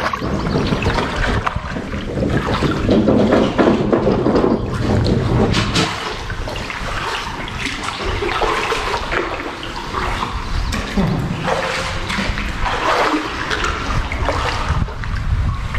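Kayak paddling: a wooden Greenland paddle dipping and pulling through the water, with splashing and dripping from the blades and water running along the hull, under a concrete bridge arch.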